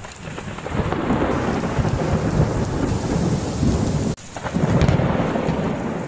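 Thunderstorm: heavy rain with deep rolling thunder. The rumble cuts off abruptly about four seconds in and swells up again.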